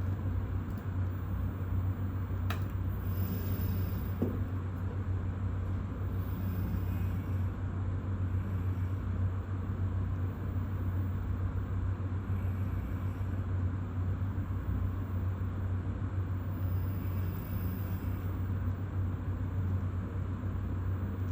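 Robot arm running its taught motion sequence: the joint motors give a steady low hum, with faint higher whines coming and going every few seconds as the joints move. There is a single click about two and a half seconds in.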